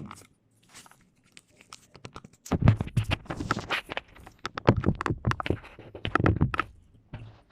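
Handling noise at a workbench: after a few faint ticks, a dense run of knocks, clicks and rustling starts about two and a half seconds in and stops shortly before the end.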